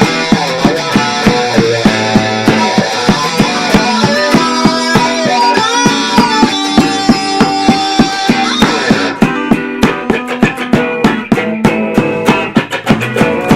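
Live band playing an instrumental passage: guitars over bass and a steady drum beat. The sound thins out in the highs about nine seconds in.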